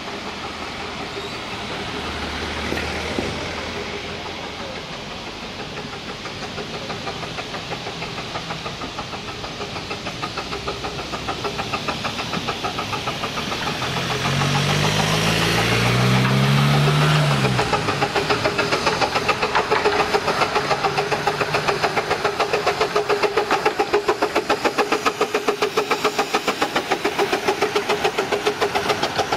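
Miniature 15-inch-gauge steam locomotive approaching and running past with its train, its chuffing and wheel clatter growing louder into a rapid, even beat as it draws level. For a few seconds midway there is a low engine drone that rises and falls in pitch, the loudest thing heard.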